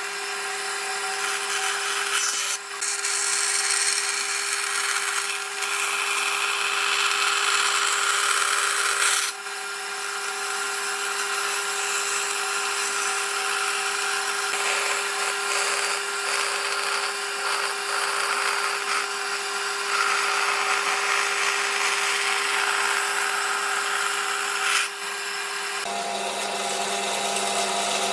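Bandsaw running and cutting a pine board along a curve: a steady motor hum under the noise of the blade in the wood, which swells and eases as the board is fed. The hum shifts lower about two seconds before the end.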